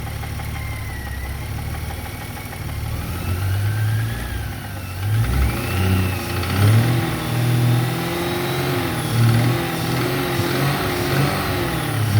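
Toyota FZJ80 Land Cruiser's 4.5-litre straight-six idling, then revved up and down several times, with a higher whine rising and falling along with the engine speed.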